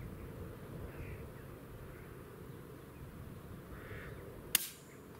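A single shot from a Bergara B14R .22LR rifle firing a subsonic round: one sharp crack about four and a half seconds in, followed less than a second later by a fainter ringing clang as the bullet strikes the distant steel plate target. Faint crow caws now and then over a low wind rumble.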